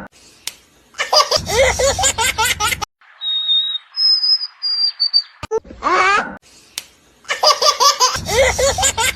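A small child laughing in two bursts of rapid giggles, with brief high whistle-like tones in the gap between them.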